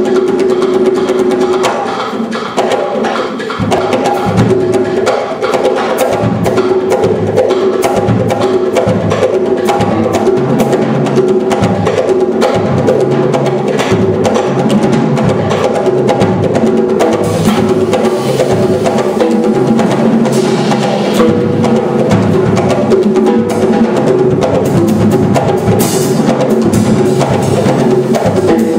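Jazz orchestra playing live: busy hand-drum percussion on bongos over held ensemble chords, with a low bass line coming in about three and a half seconds in.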